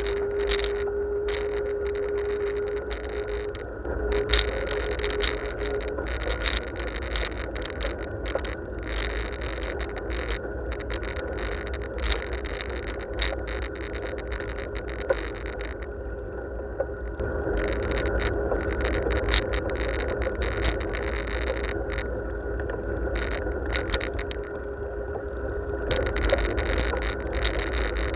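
Bicycle ride heard from a camera mounted on the bike: wind rumbling on the microphone, with irregular rattles and clicks from the bike over the path and a steady faint whine.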